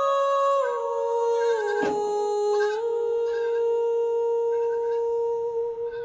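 A long, steady humming tone that steps down in pitch a few times, then holds one note until it stops suddenly near the end. Faint, wavering goat bleats sound behind it a few times.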